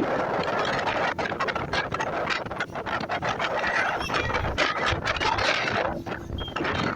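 Wind buffeting the microphone on a moving boat: a loud, rough rushing with irregular flutters.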